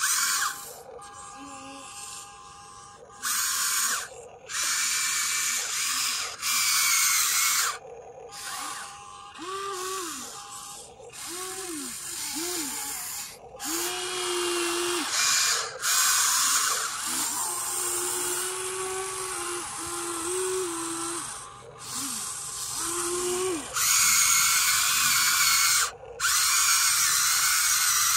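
Huina 1593 RC excavator's electric motors and gearboxes whirring in bursts that start and stop abruptly as the boom, arm and bucket are worked to dig and load dirt.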